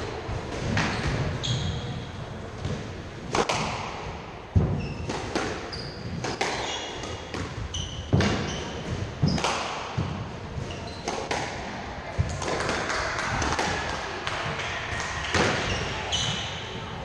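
Squash rally: the ball cracking off the rackets and the court walls, each hit echoing in the court, roughly one a second. Shoe soles squeak in short bursts on the wooden floor as the players move.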